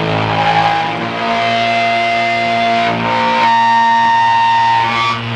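Distorted electric guitar from a live band ringing out in long held notes, with no drums playing.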